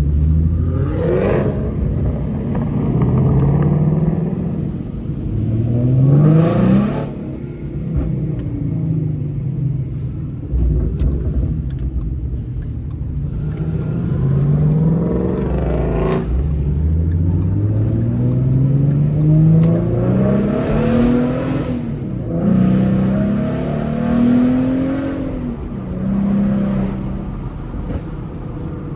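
2014 Ford Mustang's 3.7-litre V6, with a Roush axle-back exhaust and BBK shorty headers, accelerating repeatedly. The engine note climbs in pitch several times and falls back between climbs.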